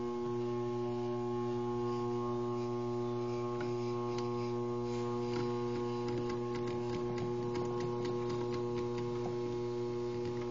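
Steady electric hum of a variable-speed lathe turning a pool cue slowly while Irish linen thread winds onto it, with a few faint ticks in the second half.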